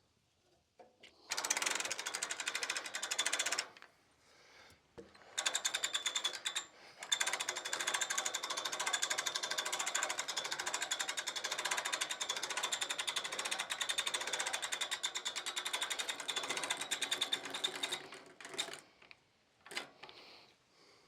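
A small machine runs in two spells, a short one near the start and a long one from about 5 to 18 seconds in, with a fast even rattle and a steady high whine.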